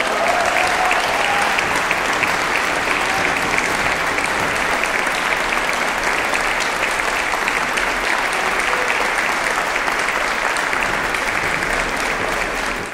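Audience applauding steadily, with the last chord of a string orchestra dying away under the clapping in the first second or so; the applause stops suddenly at the end.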